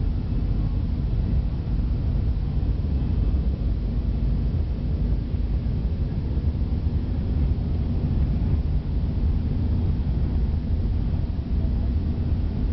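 Jet airliner's engines at takeoff power during the takeoff roll, with the wheels rumbling on the runway, heard from inside the cabin over the wing: a steady deep rumble with a hiss above it.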